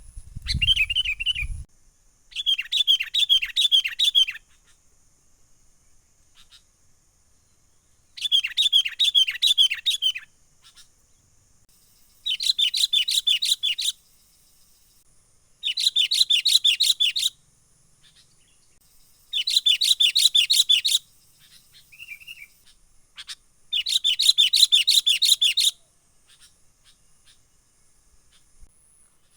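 Sooty-headed bulbul calling in bursts of rapid chattering notes, about seven phrases of roughly two seconds each, a few seconds apart. A low rumble sits under the first call.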